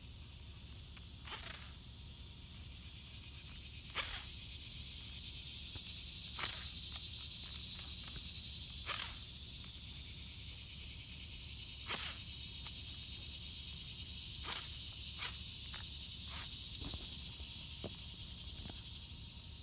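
Steady high-pitched insect chorus with a slight swell in the middle, broken by scattered sharp clicks and knocks every second or two.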